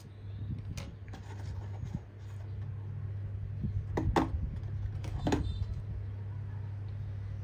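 Small plastic building bricks clicking as they are handled and pressed together, a few sharp clicks about a second in, a close pair around four seconds and another just after five, over a steady low hum.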